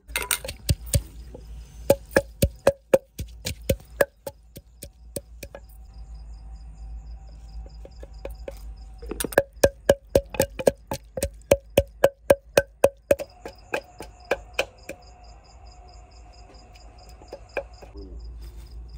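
Runs of rapid, sharp knocks, a few a second, as green chillies are cut with a knife over a steel bowl, with a cricket chirping steadily in the background.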